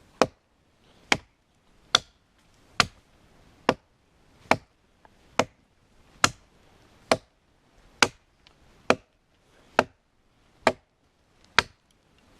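Axe chopping into wood in a steady rhythm: about fourteen sharp strokes, a little more than one a second.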